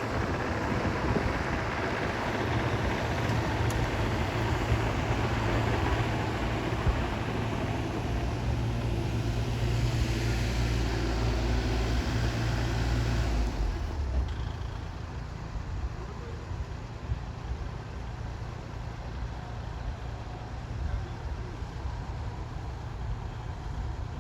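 An engine runs with a steady low hum, getting fuller and hissier toward the middle. It drops away about fourteen seconds in, leaving a quieter background rumble.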